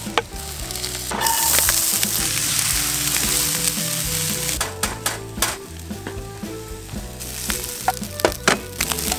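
Rice and egg sizzling in a ceramic-coated frying pan on a camp stove, the hiss coming in about a second in, as a wooden spatula stirs it. Several sharp knocks of the spatula on the pan come in the second half.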